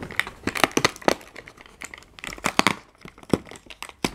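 Fingers picking at and tearing open a cardboard advent calendar door: an irregular run of scratchy crinkles and small clicks, with one sharp snap at the very end.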